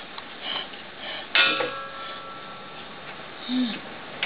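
A single sharp metallic clank with a brief ring about a second and a half in, a hand tool knocking against metal, over a steady hiss; a short low hum near the end.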